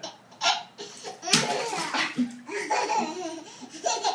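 A toddler laughing in short bursts, with a longer stretch of laughter starting about a second and a half in.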